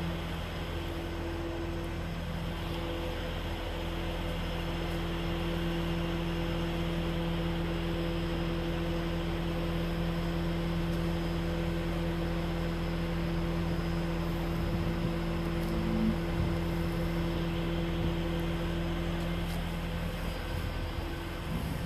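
Steady mechanical hum of an engine or motor running at a constant pitch, over a broad rushing noise.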